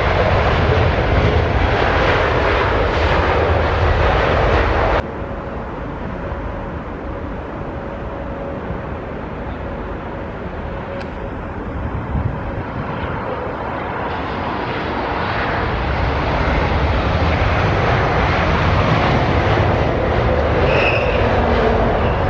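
Jet airliner engine noise: a loud, steady roar that cuts off suddenly about five seconds in, giving way to quieter jet noise that slowly grows louder again toward the end.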